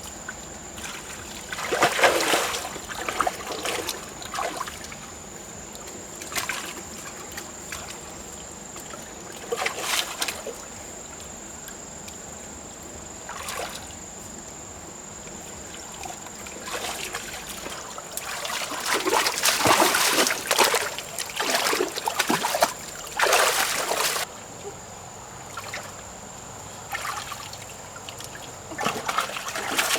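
Water splashing and sloshing in irregular bursts a few seconds apart, over a steady trickle, with a thin steady high whine behind it.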